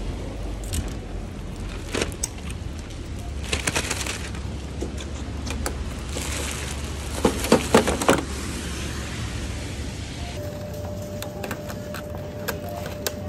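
Outdoor street ambience in the rain: a steady rumble and hiss with a few louder knocks and rustles around the middle. About ten seconds in it switches to a shop's indoor hum with a thin steady tone.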